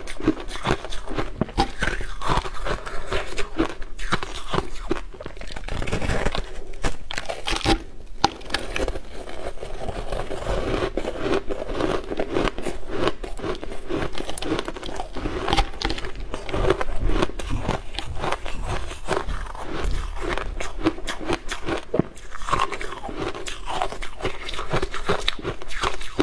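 Frosty, powdery ice being bitten and chewed close to the microphone: many crisp crunches in quick succession.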